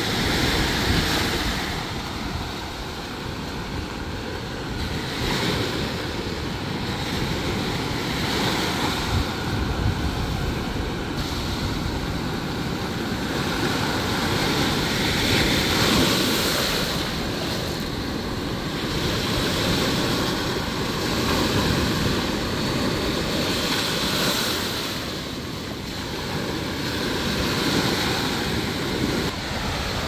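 Sea surf breaking and washing up a sandy beach, the rush of water swelling and fading every few seconds.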